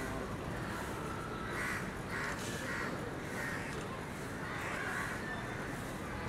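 Crows cawing repeatedly, a string of short harsh calls about one every half second to a second, over a steady low street hum.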